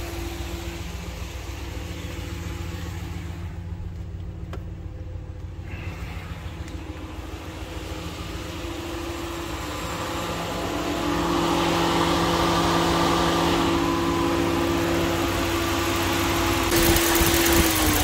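Ram 1500's 5.7-litre Hemi V8 idling steadily, growing louder about ten seconds in as it is approached with the hood open, with a light tick that the owner takes for the Hemi tick. A steady hiss joins near the end.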